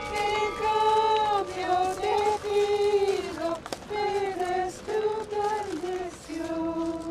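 Voices singing a slow hymn melody together, in long held notes.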